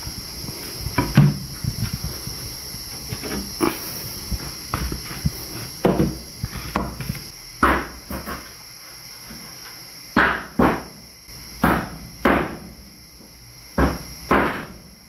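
Crickets calling steadily, with a string of sharp knocks and thumps; in the second half the knocks come in pairs about half a second apart.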